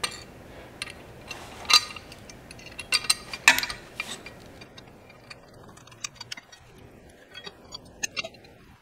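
Light metallic clinks and ticks of a metal mounting bracket and its bolts being handled and fitted under a motorcycle, with a few louder clinks in the first four seconds and smaller ticks after.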